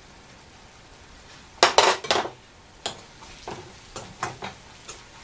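Metal spoon stirring and scraping a spice masala frying in oil in a metal kadai, over a soft sizzle. A burst of loud scrapes and clinks comes about a second and a half in, then lighter taps and scrapes.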